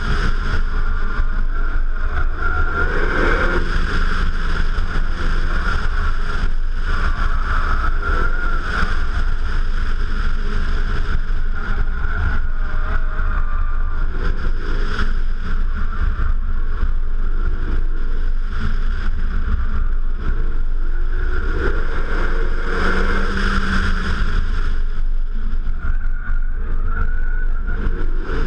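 Renault Megane RS 265 Trophy's 2.0-litre turbocharged four-cylinder driven around a track, heard from a camera mounted on the outside of the car: heavy wind buffeting and road noise over the engine, whose pitch rises and falls with the revs.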